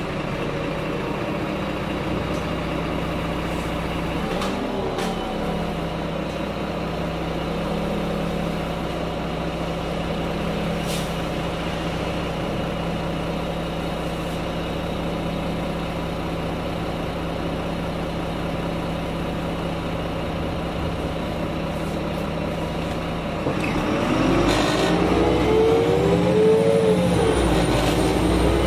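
Karosa B951E city bus's diesel engine idling steadily. About five seconds before the end it gets louder as the bus pulls away, the engine note rising and falling as the Voith automatic gearbox takes it up through the gears.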